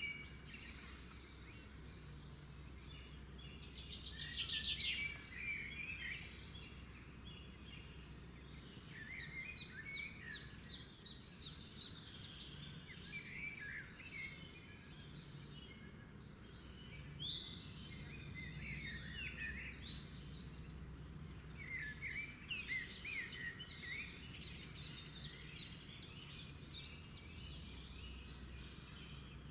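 Several birds chirping and calling, faint, in quick runs of short repeated chirps and trills, over a faint steady low hum.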